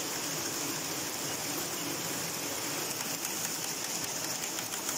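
ZHT automatic glove knitting machine running steadily, a continuous mechanical whirr with a high hiss and fine rapid ticking from the knitting carriage. It is running normally again, its sensors working.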